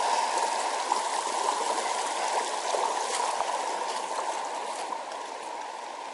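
Shallow mountain stream rushing and splashing over rocks in a riffle, a steady even wash of moving water that eases slightly toward the end.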